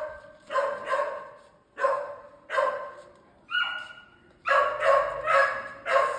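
A dog barking repeatedly, short barks in groups of two or three with brief pauses between the groups.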